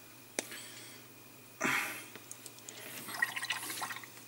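A click, then short wet hissing and squelching sounds as paint is handled at a sponge wet palette, the loudest a brief burst about one and a half seconds in.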